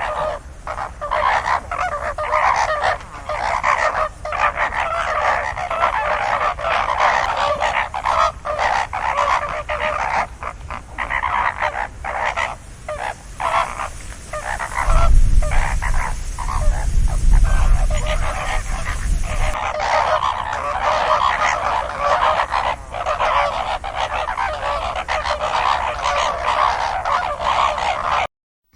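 A flock of geese honking continuously, many calls overlapping. A low rumble comes in from about fifteen to twenty seconds in.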